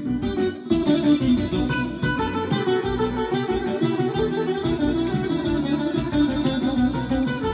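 Electric guitar played through an amplifier, picking a quick melodic line of single notes.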